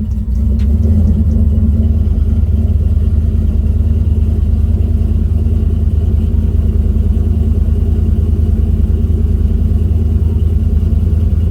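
Car engine idling steadily, a deep even rumble, with a single faint click about half a second in.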